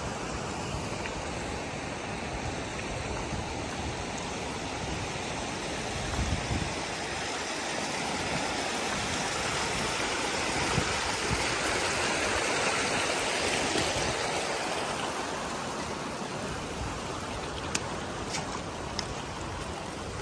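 A shallow mountain stream running over rocks, heard as a steady rush of water. It grows louder toward the middle and eases off near the end.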